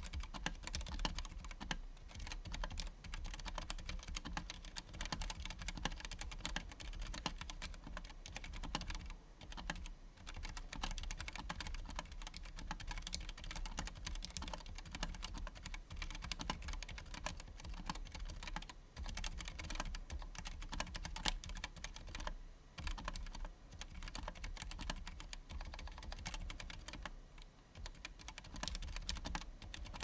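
Fast, steady typing on a custom KBD75 mechanical keyboard with Gateron Clear linear switches, PBT keycaps and a bent steel case: a dense stream of keystroke clacks with a few brief pauses between bursts.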